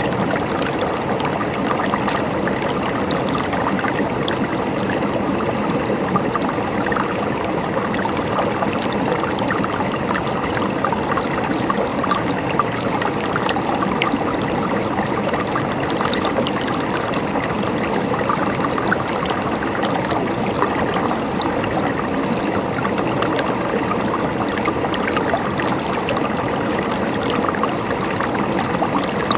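Water in a stream flowing and babbling steadily.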